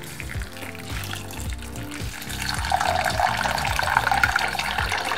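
Water pouring from a glass jug into a metal pot of soaked toor dal, the splashing growing louder about two and a half seconds in as the stream thickens, over background music.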